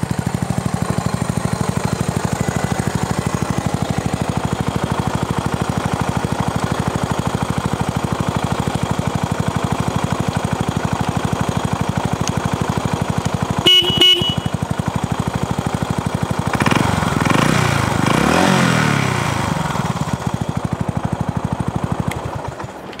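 Yamaha SR400's air-cooled single-cylinder four-stroke idling with an even thumping beat. About 14 seconds in there is a brief toot of the horn, and a couple of seconds later the engine is revved up and back down a few times before settling to idle again.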